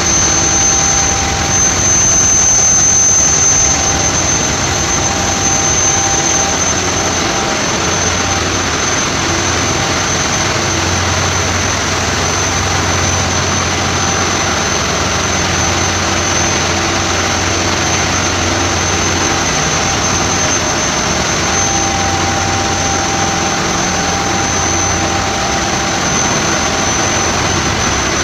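Ship engine-room machinery running: a loud, steady din of diesel engines and auxiliary machinery, with a constant high whine over it.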